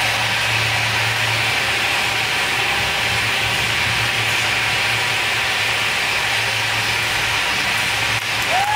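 A steady hissing noise with a low hum underneath. About eight seconds in, an audience starts applauding and someone whistles, the whistle sliding up, holding, then dropping.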